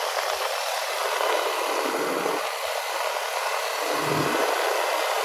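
Steady rushing wind noise buffeting the microphone as a motorbike moves along the beach.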